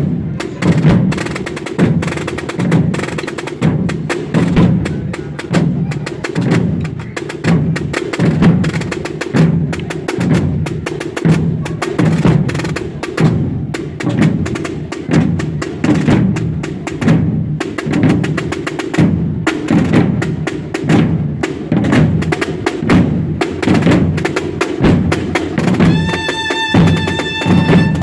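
Processional drum corps of a Holy Week brotherhood beating out a steady, rhythmic march on their drums. Near the end a high held tone sounds over the drumming for about two seconds.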